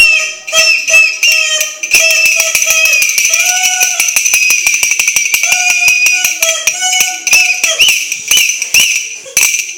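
Several toy whistles blown at once, giving shrill held tones that waver and break off and restart, over the fast, dense clatter of a shaken rattle toy.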